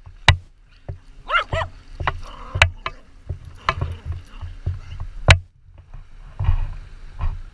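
Repeated sharp knocks and bumps right at an action camera sitting on sand, the loudest just before half a second in and about five seconds in. A short, high, wavering call, like a whine, comes about a second and a half in.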